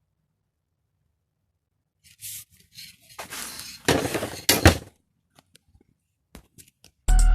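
Aerosol spray can hissing in a few short bursts about two seconds in, then a longer, rougher spell of spraying and handling noise with a couple of sharp knocks, followed by a few faint clicks. Music starts right at the end.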